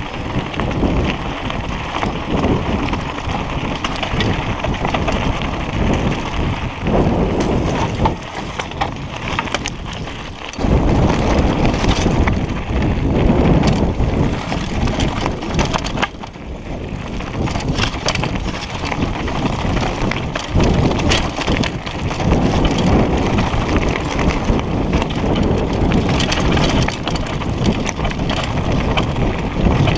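Mountain bike ridden fast down rocky dirt singletrack: wind buffeting the microphone over the clatter and rattle of the bike and its tyres on loose stones, with sudden shifts in loudness about a third and about half of the way through.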